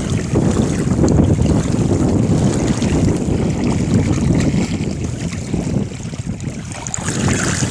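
Wind buffeting the microphone in a loud, uneven low rumble, easing off briefly before the end, over the wash of shallow river water as a gutted fish is rinsed by hand.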